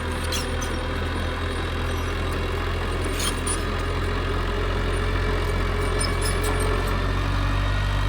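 Heavy construction machine's diesel engine running steadily with a low hum, with a few faint clicks over it.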